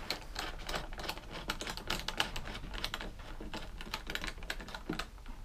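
Rapid, irregular light clicks and taps from hands and a tool working on a lawnmower's plastic engine cover.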